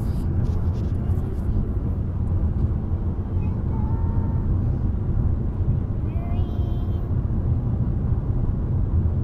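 Steady low rumble of road and engine noise inside a moving car's cabin. A child's voice sings a few short, faint notes around the middle.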